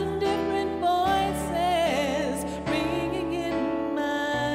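A woman singing a slow ballad with vibrato over keyboard chords that change about every second.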